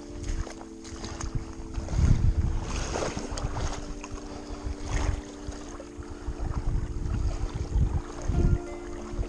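Wind buffeting the microphone in low gusts, loudest about two seconds in and again near the end, over soft background music of held chords.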